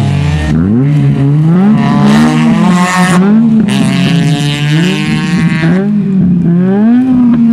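Peugeot 206 rally car engine driven hard, its note climbing and dropping back over and over as it accelerates away through the gears.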